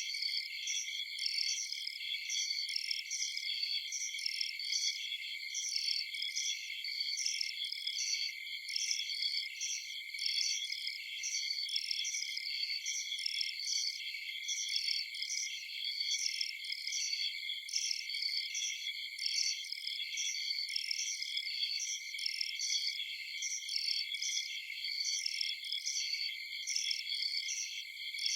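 Night chorus of crickets and other insects trilling steadily, with a higher chirp repeating a few times a second over the continuous trill.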